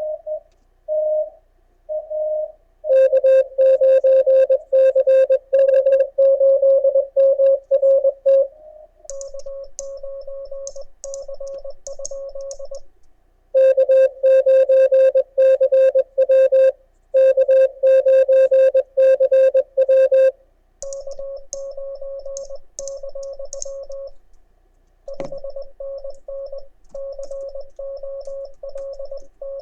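Morse code (CW) on an amateur radio transceiver during a contest pile-up: one mid-pitched beep keyed rapidly on and off. Louder and softer stretches of code take turns, the louder ones the operator's own keyed sidetone and the softer ones other stations being received.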